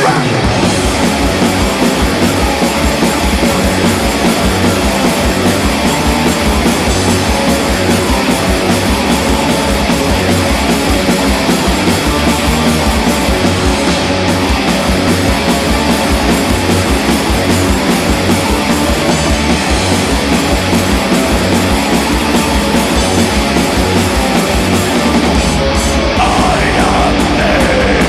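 Metal band playing live: distorted electric guitars, bass and drums, with rapid, even kick-drum beats underneath. Near the end, a line slides down in pitch over the top.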